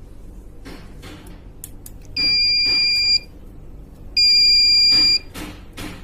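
Juki DDL-8700 industrial sewing machine's control box sounding its error alarm: two long, steady, high-pitched beeps of about a second each, a second apart, signalling error 924, which the repairer suspects is a power board fault. A few light clicks and rustles come before the first beep.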